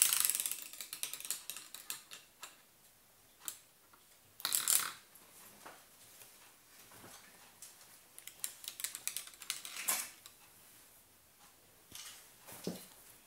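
A small spinning top built from LEGO parts, flicked into a spin and rattling and clicking as it whirls across the table. The rattle is loudest at the launch, flares up again about four and a half seconds in, comes in a few more bursts, and dies away about ten seconds in.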